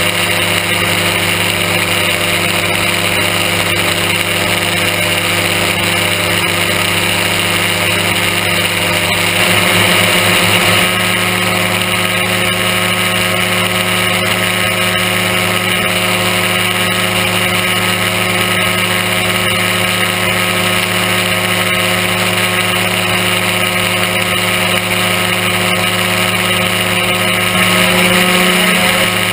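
Aerochute powered-parachute microlight's engine and propeller running steadily in cruise flight, a constant drone with rushing air. The level rises briefly about ten seconds in and again near the end.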